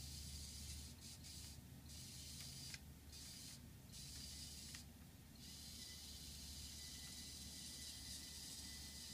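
Near silence: a steady hiss with a faint low hum, and two faint ticks about three and five seconds in.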